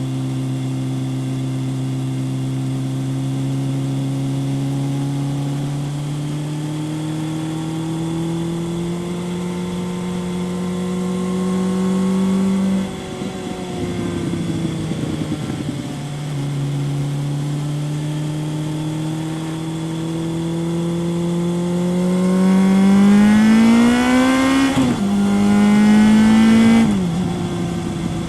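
Kawasaki ZRX 1100's inline-four running through a Yoshimura exhaust under way: the engine note climbs slowly, drops off for a couple of seconds about halfway, then builds again. Near the end it revs up hard, dips briefly at an upshift, pulls up again and falls away as the throttle closes.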